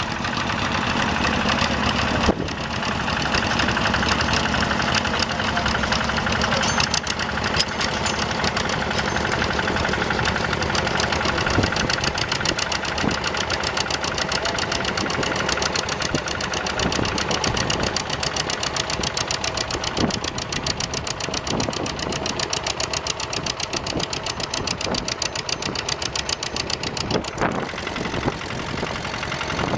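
Tractor engine running steadily with a fast, even firing beat, with a single sharp knock about two seconds in.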